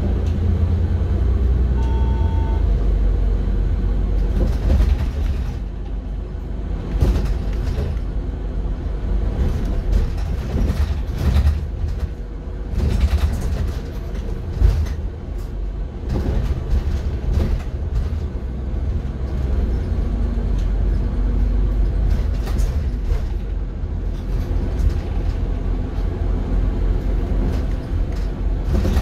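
City bus heard from inside its passenger cabin while running: a steady low engine and road rumble with frequent rattles and knocks, and a short beep about two seconds in.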